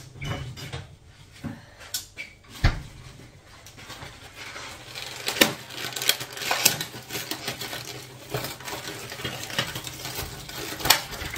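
Kitchen handling sounds: a frying pan and utensils knocking and clinking, with a few sharp knocks among quieter clatter.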